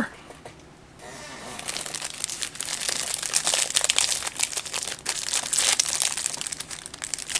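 Plastic snack-cake wrapper crinkling and crackling as it is handled and opened. It starts about a second in and goes on as a dense, continuous crinkle.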